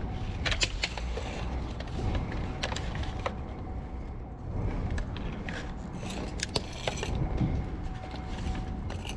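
Handling noise from a plastic Oreck vacuum cleaner: scattered light knocks, clicks and rattles of its casing, hose and strap as it is turned over by hand, over a steady low rumble.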